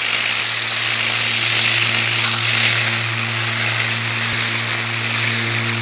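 Electronic noise soundtrack: a dense, steady hiss over a low hum, with a higher tone that pulses on and off in an even rhythm.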